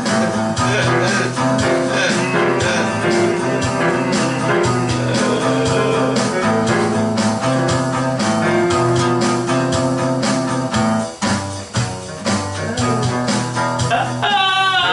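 Guitar-led music with a steady beat, played without singing. A wavering high note comes in near the end.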